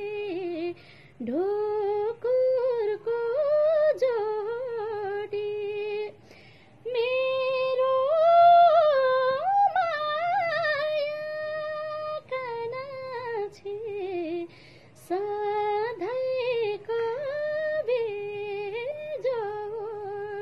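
A woman singing a Nepali folk melody alone, without accompaniment, in long held notes that bend and waver, with short pauses for breath between phrases. The small room is audible around her voice.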